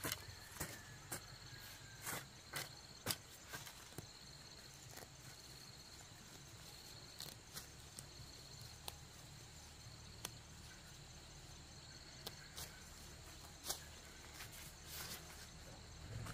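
Insects chirping steadily in a high, pulsing trill, with scattered sharp clicks or knocks, most of them in the first few seconds.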